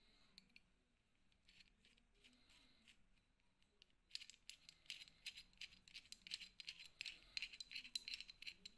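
Adjusting nut of a Gedore pipe wrench turned by the thumb, sliding the hook jaw: small metallic clicks and rattles, a few at first, then a dense quick run from about four seconds in.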